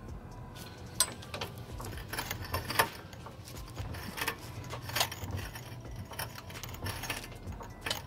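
Hydraulic floor jack being pumped to lift the front of a minivan: irregular metallic clicks and rattles from the handle and linkage, roughly one a second, over a low steady hum.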